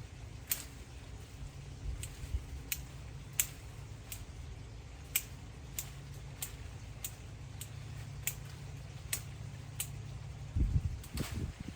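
Hand pruning shears snipping, a sharp click about once or twice a second, over a steady low rumble, with a louder low thud near the end.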